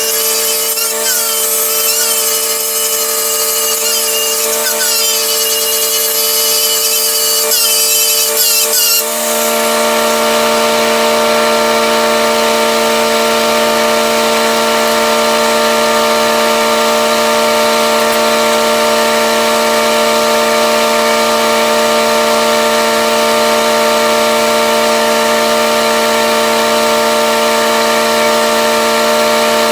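Lincoln SA200 engine-driven welder running after a cold start, with a steady whine. For the first nine seconds or so it is overlaid with a repeated squeak. After a brief dip the squeak stops and the machine settles into a steadier, fuller running hum.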